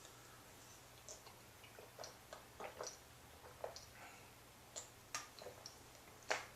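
Faint, scattered clicks and small mouth and handling noises of someone drinking from a plastic bottle of drinkable yogurt.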